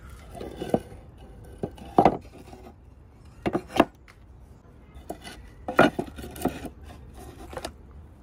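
Loose wooden boards clattering and knocking against each other as they are handled and moved by hand: a string of sharp wooden knocks, the loudest about two, four and six seconds in.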